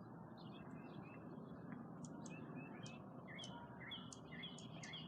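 Birds chirping faintly, with many short calls repeating and coming quicker after the first few seconds, over a steady low background noise.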